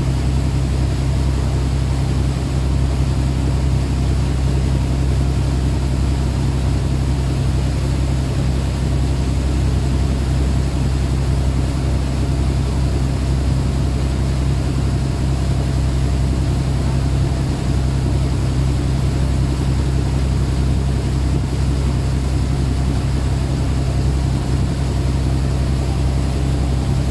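A boat's engine running steadily under way, a low, even drone, with the rush of water from the wake.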